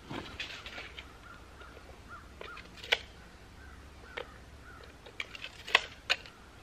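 Footsteps rustling in dry leaves for about the first second, then several short sharp clicks, one about three seconds in and two loudest ones close together near the end. Faint bird calls sound in the background.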